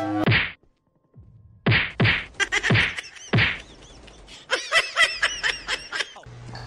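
A soft plush toy swatted against a dog: several dull thwacks, four of them in quick succession, followed by a quick run of high squeaky chirps.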